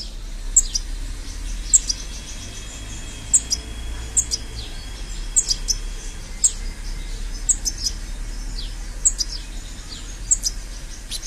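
Short, sharp, high-pitched bird chirps at irregular intervals, about one every second or so, from a small songbird. A faint thin steady whistle-like tone runs for a few seconds in the first half.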